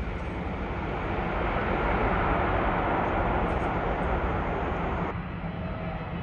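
Jet engine noise from an Emirates Airbus A380 on the ground, a rushing sound that swells to its loudest two to three seconds in. It cuts off abruptly about five seconds in, leaving a quieter, lower rumble.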